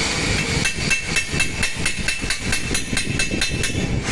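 Sharp clicking at an even rate of about four a second, lasting about three seconds, from a hand tool being worked by a mechanic. Under the clicks is a steady rumble and hiss.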